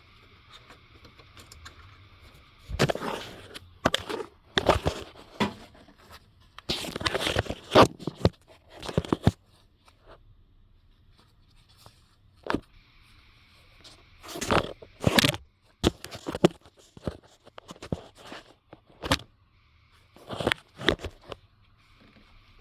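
Nylon zip tie being fed through and pulled tight around a wiring harness, with scraping and crackling of hands handling the tie and harness: a string of short irregular bursts with pauses between.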